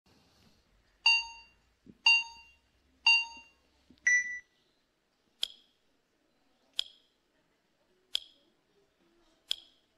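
Flash mental-arithmetic countdown: three identical electronic beeps a second apart, then a higher-pitched start beep. It is followed by four short ticks about 1.4 seconds apart, one for each two-digit number flashed up for the four rows.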